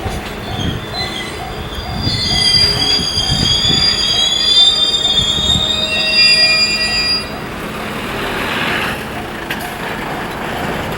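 A train rolling across a level crossing, its wheels squealing on the rails from about two seconds in until about seven seconds in, with dull knocks from the wheels. A Japanese level-crossing alarm rings in an even repeating pattern.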